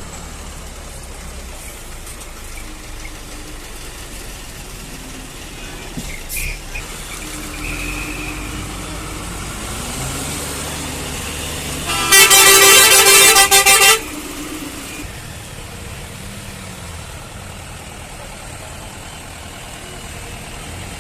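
Vehicle horn sounding one loud blast of about two seconds, roughly halfway through, over the steady low rumble of vehicle engines running in a traffic jam.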